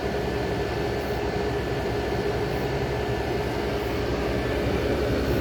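General Electric Carry Cool window air conditioner, about 35 years old, running: a steady drone of compressor and fan with a constant hum.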